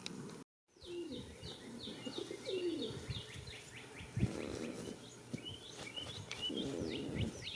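Small birds chirping over and over in quick falling notes, while a goat snores in two rough, rattling breaths, one about four seconds in and one near the end. The sound drops out completely for a moment about half a second in.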